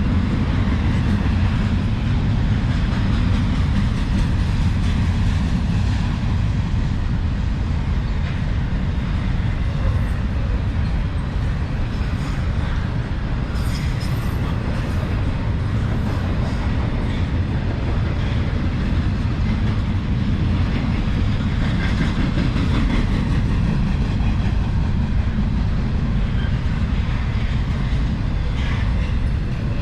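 Cars of a mixed autorack and intermodal freight train rolling past: a steady rumble of wheels on rail with scattered rattles and clanks.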